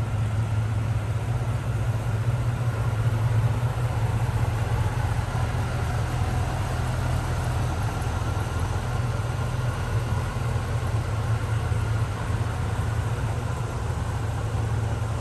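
1985 GMC Sierra Classic 2500 pickup's engine idling steadily: an even low hum with no revs or changes.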